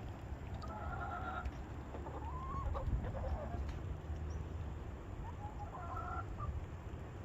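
Chickens clucking and calling in short phrases, in three bouts, over a steady low rumble.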